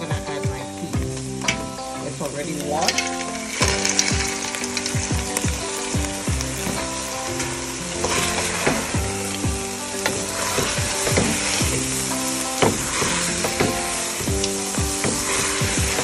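Aromatics and seasoning frying in butter in a hot pot, sizzling steadily, with irregular knocks throughout.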